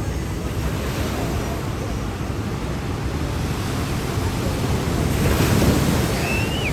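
Ocean surf washing on the beach with wind buffeting the microphone; a wave breaks louder about five seconds in, and a brief high chirp sounds near the end.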